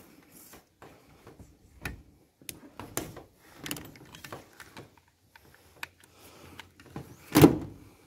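Handling noise as a power cord is dragged across a van's metal roof and its plug handled: scattered small clicks, knocks and scrapes, with one louder thump near the end.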